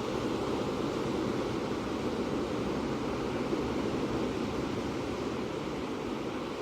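Ocean surf: a steady rushing wash of waves, with no single breaking wave standing out.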